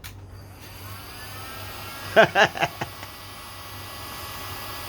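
A machine's electric motor starts about half a second in, whining up in pitch, then runs steadily with a hiss. A short burst of a person's voice comes about two seconds in.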